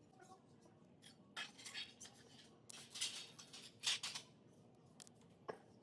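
Cable crimping tool worked on a bike cable: a few short, faint metallic scrapes and clicks, the loudest about three and four seconds in, and one sharp click near the end.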